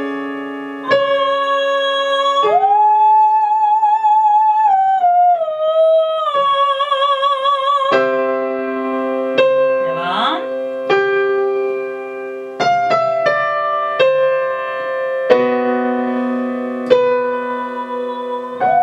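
A woman sings a vocal exercise linking chest and head voice over chords on a digital piano: a held vowel glides up about two seconds in, wavers with vibrato and steps back down. From the middle on, the piano strikes a run of chords, with a quick sung slide upward about ten seconds in.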